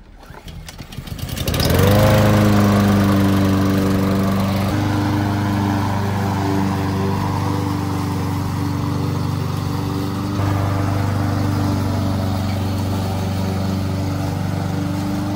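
Troy-Bilt walk-behind lawn mower's small engine starting up: it catches about a second and a half in, rises to speed, and then runs steadily.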